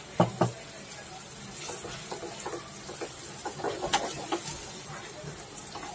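A spatula stirring thick spinach paste into sizzling masala in a frying pan: short scraping and tapping strokes against the pan over a faint steady sizzle, with two sharp knocks just after the start.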